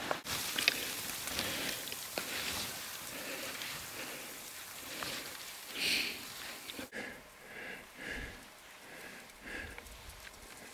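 Skis hissing and crackling through powder snow, heard close. The sound cuts off sharply about seven seconds in and gives way to a few quieter, fainter swishes.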